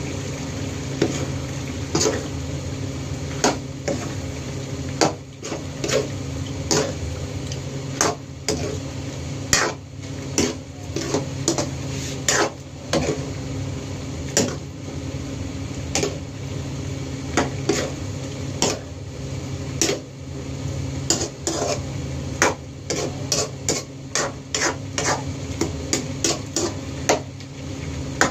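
Metal ladle clinking and scraping against a frying pan as pieces of squid in adobo sauce are stirred, in irregular quick knocks over a steady low hum.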